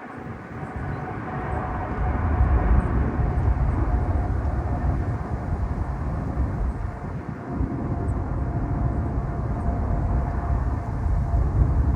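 Boeing 777-300ER's twin GE90-115B turbofans at takeoff power on departure. A deep rumble swells about two seconds in and holds, under a steady whine that drifts slightly lower in pitch.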